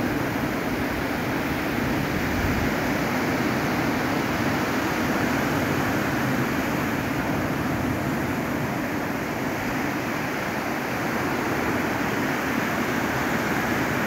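Sea surf breaking and washing up a sandy beach: a steady wash of small waves that swells and eases only slightly.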